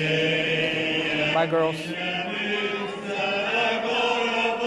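Church congregation singing the closing hymn in slow, held notes.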